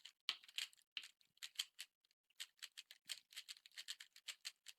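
Rubik's Cube being turned rapidly one-handed during a speedsolve: a quick, uneven run of faint plastic clicks, with a short pause about two seconds in.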